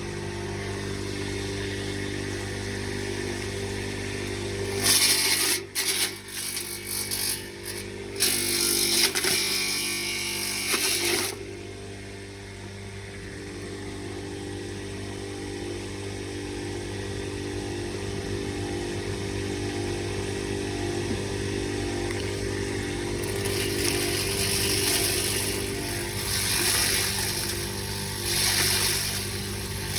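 Grass chopper machine running steadily, with loud rough shredding bursts as leaves are fed into it, about five seconds in and again for the last several seconds.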